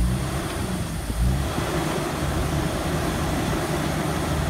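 1997 Jeep Wrangler TJ's 4.0 inline-six engine running under load as the Jeep crawls up a rock ledge, with the revs swelling about a second in.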